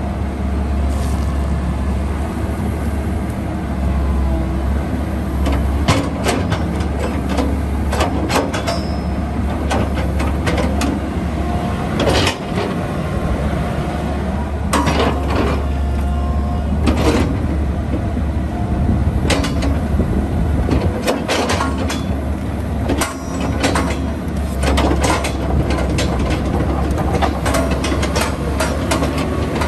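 Komatsu PC138US LC-8 excavator's diesel engine running with a steady low hum, over which come many irregular sharp metallic clanks and knocks.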